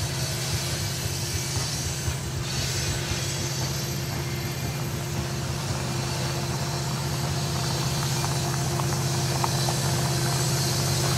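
Loaded coal train under way upgrade: the steady low drone of EMD diesel locomotives working hard, mixed with the rolling of loaded coal hoppers, growing louder toward the end as the locomotives draw nearer. A few faint ticks sound from the wheels on the rail.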